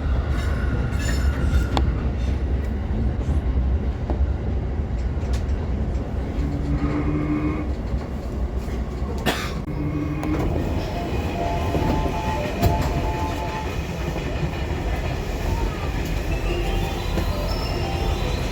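Electric commuter train running, heard from inside the car: a steady low rumble with wheels clattering over the rails and a sharp crack about nine seconds in. A whine rising in pitch near the end.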